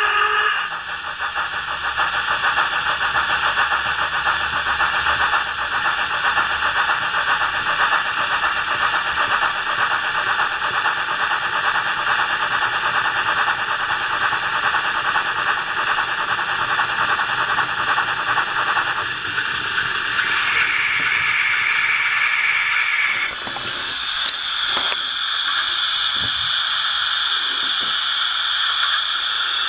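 Steam-locomotive running sound from a LokSound 3.5 DCC sound decoder played through the small 20x40 speaker of a Hornby OO-gauge Duchess model: steady rapid chuffing with hiss. About twenty seconds in, a high steady tone sounds for a couple of seconds, and then the sound changes, with a few knocks.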